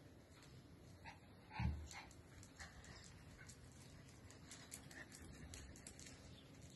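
A small dog gives one short, low woof about a second and a half in, with a few fainter short yips around it.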